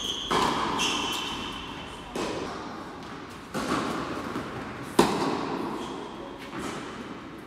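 Tennis ball struck by rackets and bouncing on a hard indoor court during a rally: four sharp hits a second or so apart, the loudest about five seconds in, each ringing out in the echo of a large tennis hall.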